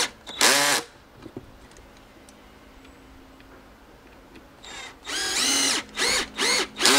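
Cordless drill-driver driving wood screws into a pine block in bursts of its motor, each rising and falling in pitch. One short burst comes just after the start; after a pause of about four seconds there is a longer run, followed by three quick bursts near the end.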